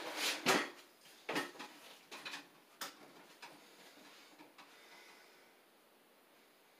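Several short rustles and light knocks from shelving parts being handled, clustered in the first three seconds, then quiet room tone.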